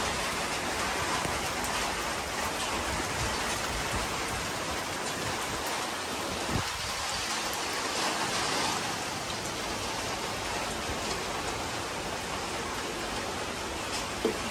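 Steady rain falling and pattering on a garden terrace, with a couple of sharper drop taps, one about halfway through and one near the end.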